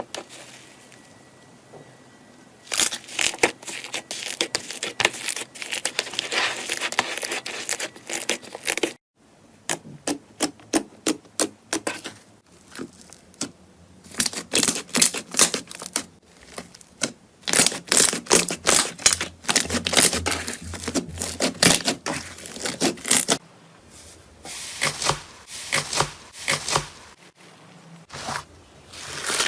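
Slime being squeezed, poked and stretched by hand, making rapid crackling and popping clicks in several stretches separated by brief pauses.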